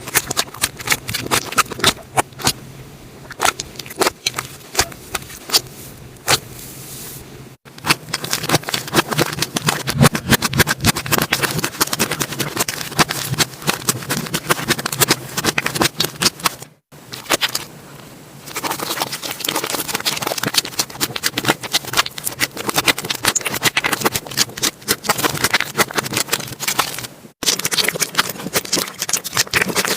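Slime being squeezed and worked by hand, making dense, rapid clicky crackling pops of trapped air. The sound breaks off abruptly three times.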